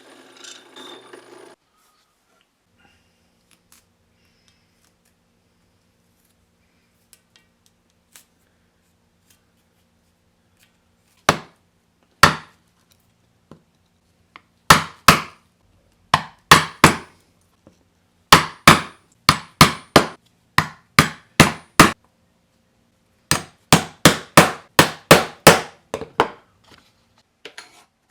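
Hammer blows on wood: after a long quiet stretch, two single strikes, then quick runs of several sharp blows in a row, about two dozen in all.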